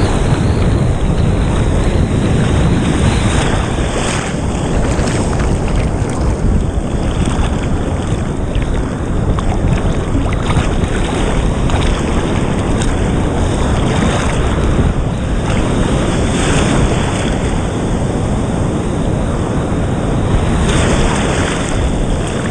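Rough surf breaking and foaming around the microphone at water level, a loud continuous rush of churning water, with wind buffeting the microphone.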